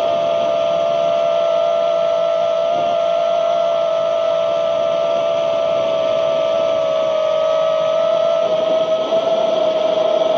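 Eachine Tyro 109 FPV quadcopter's brushless motors and propellers whining steadily in fast, low flight, several close tones holding a nearly level pitch. A steady rush of wind over the onboard microphone runs underneath.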